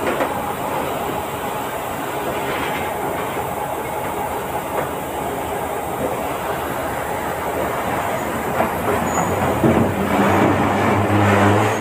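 Passenger train running along the rails, heard from aboard a coach: a steady rumble and wheel-on-rail noise. In the last two seconds a louder low hum joins and the noise grows.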